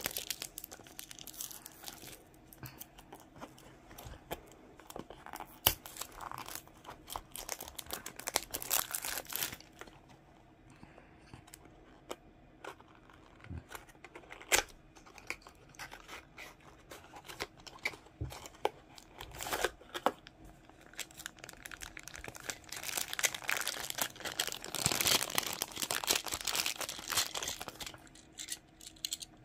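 A small cardboard toy-car box and its clear plastic wrapping being handled and opened: the tape seal tearing off, then the thin plastic bag crinkling as the die-cast car is pulled out, with scattered taps of cardboard and plastic. It comes in bursts, busiest in the first third and again near the end.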